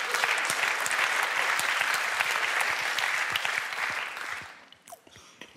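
An audience applauding, many hands clapping at once, dying away about four and a half seconds in.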